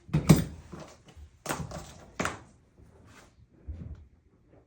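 A few sharp knocks and thunks: one right at the start, two more about a second and a half and two seconds in, and a fainter low thud near the end.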